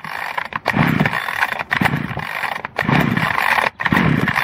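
Earthquake two-stroke chainsaw being pull-started with the choke out: about four quick pulls on the recoil starter, a second or so apart, each spinning the engine over without it catching. The engine turns over freely now that the broken screw jamming the flywheel is gone.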